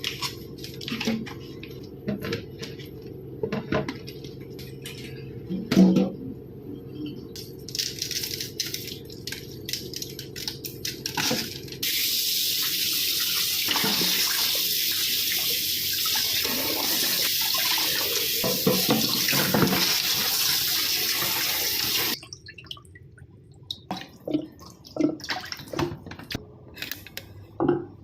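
Kitchen tap running steadily into a sink for about ten seconds in the middle, starting and stopping abruptly. Before and after it, scattered clinks and knocks of kitchen utensils and dishes.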